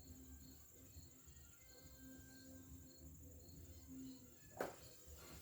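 Near silence, with a cricket chirping faintly and steadily, about two short high chirps a second. A single soft click a little after four and a half seconds.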